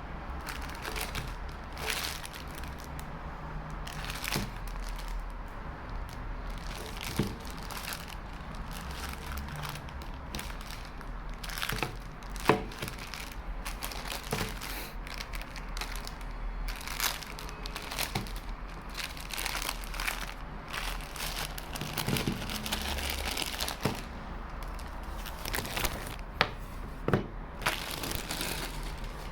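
iPhone box and its paper wrapping being handled and opened: continual rustling and crinkling of paper and cardboard, with scattered clicks and taps. One sharp click comes about twelve seconds in and two more come near the end.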